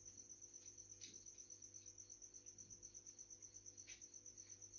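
Faint cricket chirping: a steady high-pitched trill pulsing evenly about eight times a second, with two faint clicks, about a second in and near the end.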